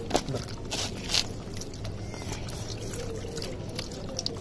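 Wet handling of a skinned baam eel over a steel basin of fish: a few short wet squishes, mostly in the first second or so, with a faint trickle of liquid.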